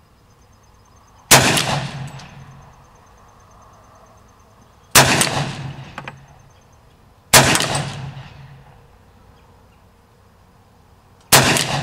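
Four single shots from a Hi-Point .40 caliber carbine at uneven intervals, the first about a second in and the last near the end, each report trailing off in an echo lasting about a second.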